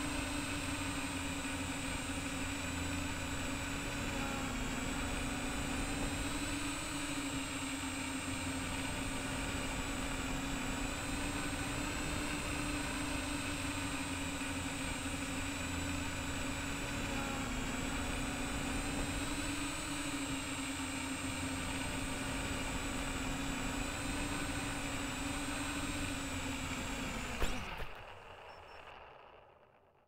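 MJX Bugs 3 quadcopter's brushless motors and triblade propellers whining steadily in flight, heard from the camera mounted on the drone, the pitch wavering slightly with throttle. Near the end there is a short knock as it touches down, then the motors stop and the sound dies away.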